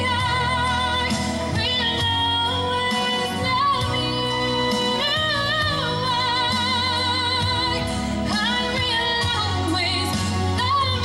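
A woman singing a slow song into a microphone over accompanying music, holding long notes with a wide vibrato.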